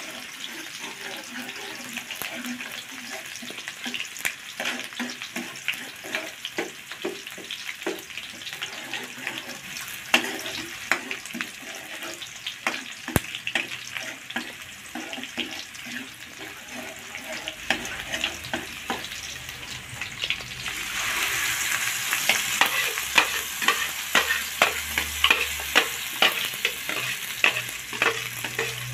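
Sliced shallots sizzling in hot oil in a wok, with a metal spatula scraping and clinking against the pan as they are stirred. The sizzle gets louder about two-thirds of the way through.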